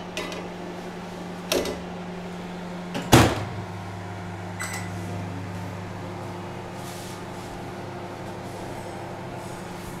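IFB 30BRC2 convection microwave oven: a light knock, then its door shut with a sharp knock about three seconds in, after which the oven runs with a steady low hum.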